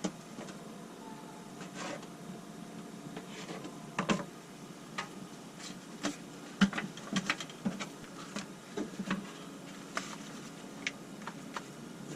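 Food being prepared by hand: scattered, irregular light clicks and knocks of kitchen utensils and cookware being handled, the sharpest about six and a half seconds in.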